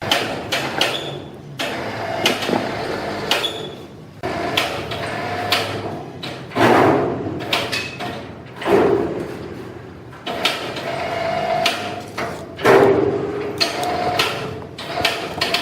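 Sawmill machinery working: repeated knocks and clatter of wood and metal, with a few louder surges of noise about six and a half, nine and thirteen seconds in.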